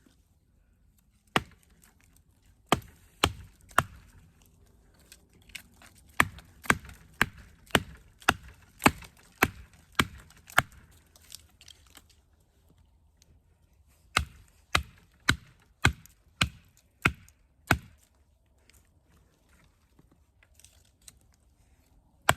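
Batoning a Demko Armiger 4 knife through a small tree: sharp wooden knocks of a baton striking the knife's spine as the blade is driven into the trunk. The strikes come in runs of several, about two a second, with pauses between runs.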